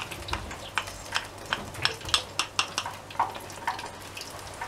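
Olive oil poured into a hot frying pan, crackling with sharp irregular pops, while a wooden spoon scrapes the last of the oil out of a small bowl. The pops thin out in the last second.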